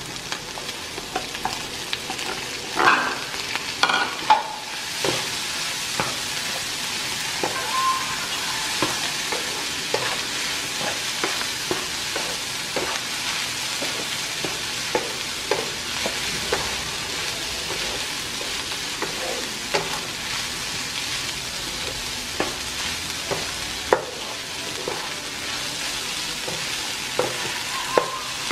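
Fried rice sizzling in a nonstick frying pan while a wooden spatula stirs and tosses it, with frequent light, irregular knocks of the spatula against the pan. A few louder knocks come about three to four seconds in.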